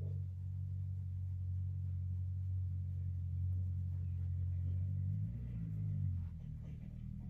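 Soft background music of low, held tones that shift to a new chord about five seconds in.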